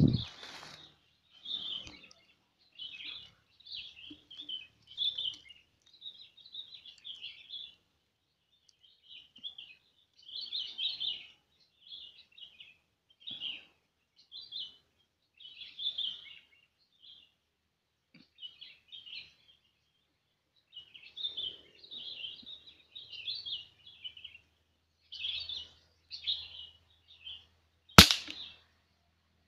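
Small birds chirping and twittering in short phrases throughout, with a thump right at the start. About 28 seconds in, a single sharp shot from a scoped rifle, the loudest sound.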